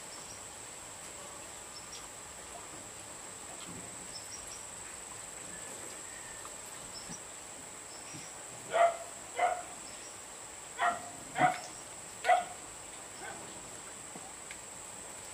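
A dog barking five times, in two quick pairs and then a single bark, in the second half. A steady high-pitched whine runs underneath.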